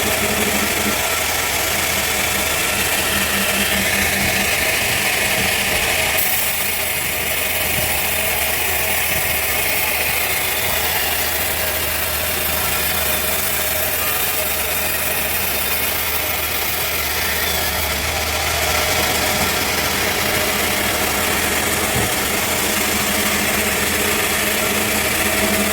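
Sawmill machinery running steadily, with a brighter hiss from about six seconds in until about eighteen seconds.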